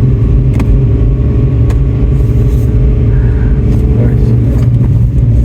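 Pickup truck engine running steadily with a constant low hum.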